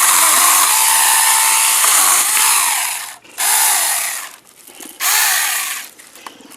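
Saker 4-inch cordless mini chainsaw running and cutting wood, its motor pitch sagging and recovering under load. It cuts out about three seconds in, then runs in two short bursts before stopping.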